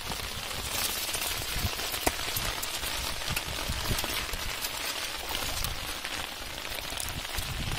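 Steady rain falling on shallow floodwater: a dense even hiss dotted with the ticks of single drops.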